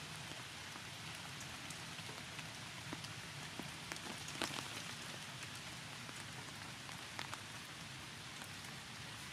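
Steady rain falling, with scattered sharper taps of single drops close by, the loudest a little before the middle.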